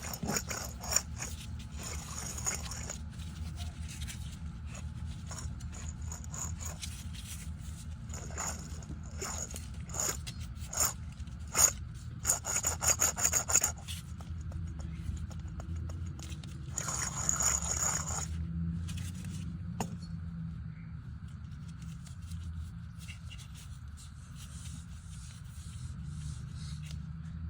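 A bad automotive wheel bearing: a steady low rumble with scraping, grinding bursts that come and go, thickest from about 8 to 14 seconds in and again around 17 seconds.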